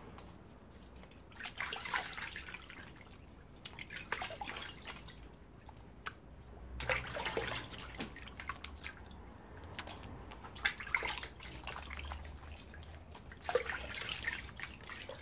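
Hands washing in a plastic bucket of water: irregular bursts of splashing, sloshing and dripping as the hands are dipped, rubbed together and lifted out.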